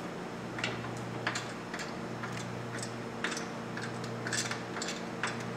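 Hand ratchet clicking in short, uneven strokes as T40 Torx screws are driven into a motorcycle's chrome fender strut, over a steady low hum.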